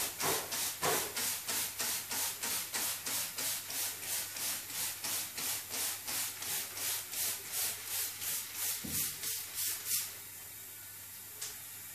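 Hand trigger spray bottle being squeezed over and over, about three squirts a second, each a short hiss of mist. The squirting stops about ten seconds in, and a single faint click follows.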